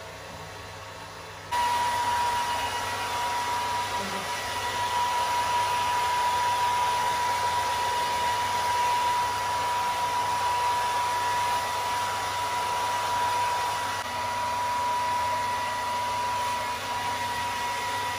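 Handheld electric hair dryer blowing steadily, a loud rush of air with a steady high whine. It gets suddenly louder about a second and a half in and then holds.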